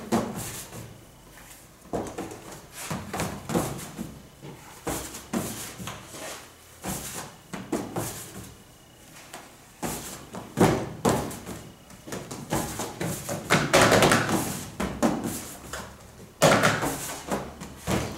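Irregular knocks, taps and rubbing from hands working pan de muerto dough on metal baking sheets and a steel worktable, with a longer rubbing stretch around fourteen seconds in and the loudest knocks about ten and sixteen seconds in.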